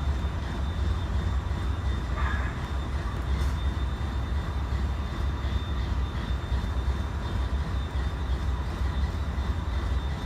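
Diesel locomotives of a stopped coal train idling: a steady low rumble with a faint high whine over it.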